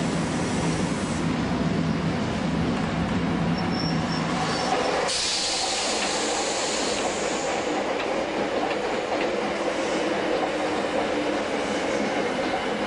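Running noise of a Shin-Keisei 200 series electric train with nose-suspended (axle-hung) traction motors, heard from the cab on curved track, with a low steady motor hum. About five seconds in, an oncoming train passes close alongside on the next track, and a sudden rush of noise replaces the hum.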